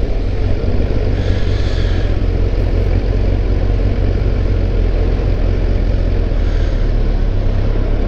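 Kawasaki ZRX1200S motorcycle's inline-four engine running at steady, low revs while riding, with wind and road noise on the microphone.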